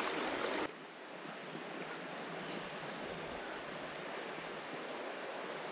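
Steady rush of a creek's flowing water, dropping abruptly to a quieter, even rush just under a second in.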